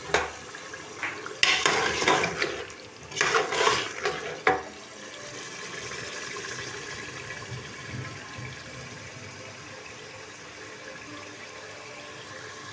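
Potatoes and mutton frying in masala in a metal pressure cooker pot, giving a steady sizzle. A metal spatula scrapes and clatters against the pot in several bursts during the first few seconds as the mixture is stirred.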